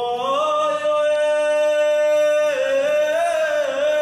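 Paiwan men singing a traditional song a cappella, holding one long steady note that wavers and bends in pitch about halfway through.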